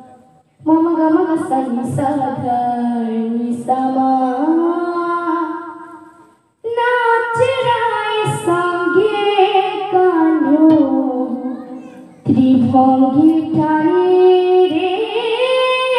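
A young girl sings an Odia devotional kirtan into a microphone in three long phrases, with short pauses for breath between them, accompanied by a mridanga drum.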